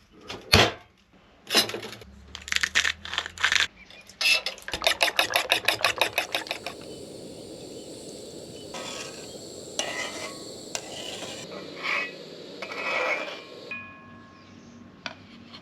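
Scrambled-egg cooking: a fork clinks rapidly and regularly against a bowl as eggs are whisked. Then comes a steady sizzle from the pan with a few scrapes and knocks, which stops near the end.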